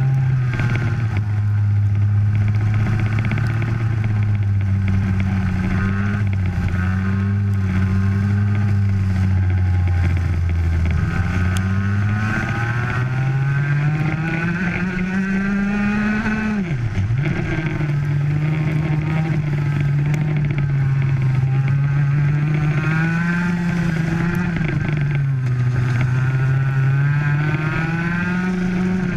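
Racing kart engine heard from on board, running hard at race speed. Its pitch holds low and steady at first, climbs for several seconds past the middle, dips sharply as the throttle comes off for a corner, then rises and falls again with the laps' bends.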